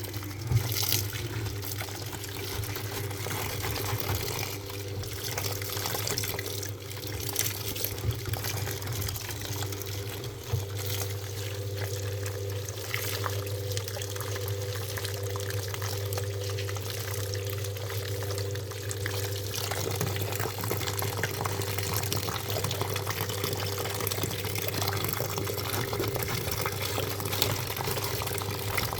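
Water running and splashing steadily into a top-loading washing machine's tub, over a steady low hum.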